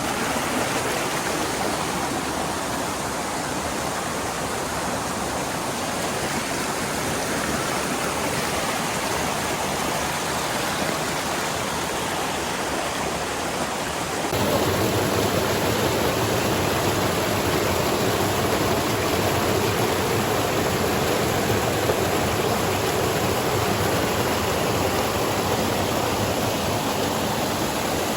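Steady rushing of flowing water. About halfway through it changes abruptly to a slightly louder, fuller rush.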